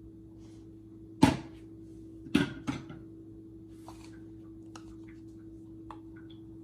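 Kitchen containers being handled while the blended mix is poured back into its tub: one sharp knock about a second in, the loudest, two more close together a second later, then a few lighter clicks, over a steady low hum.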